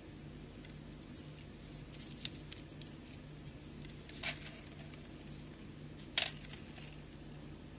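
Small beads clicking as they are picked up and threaded onto fishing line: three light clicks about two seconds apart, the last the loudest, over a steady low hum.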